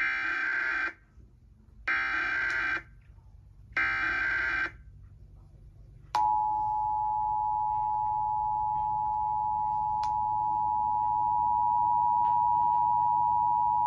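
Emergency Alert System SAME header: three one-second bursts of digital data tones about two seconds apart, then the two-tone EAS attention signal (853 and 960 Hz) held steady for about eight seconds, opening a statewide required monthly test.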